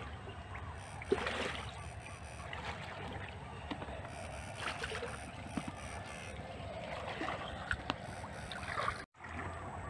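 Shallow canal water sloshing and splashing as a person wades through it, sweeping a scoop net and an electrofishing probe, with a few sharper splashes, the strongest about a second in. A steady low rumble runs underneath, and the sound cuts out briefly near the end.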